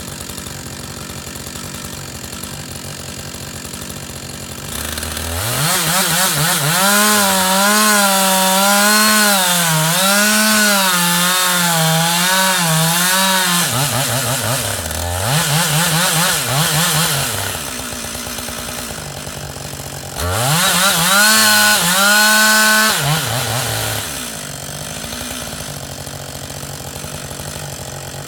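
Husqvarna 560XPG two-stroke chainsaw idling, then revved to full throttle for about eight seconds with its pitch wavering, as under load while cutting wood. It drops back, gives a couple of short revs, idles, and is revved again for about three seconds before settling back to idle.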